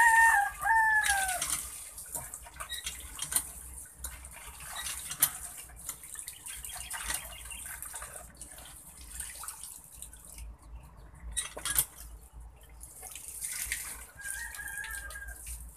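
Water from a hand pump's spout trickling and splashing into a metal wok as hands wash in it, with small clicks and splashes throughout. An animal call falls twice in pitch at the start, and a shorter call comes near the end.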